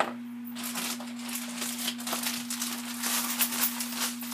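Clear plastic bag of seasoned almond flour being shaken and crinkled by hand: a quick run of rustling, rattling shakes that starts about half a second in and grows louder.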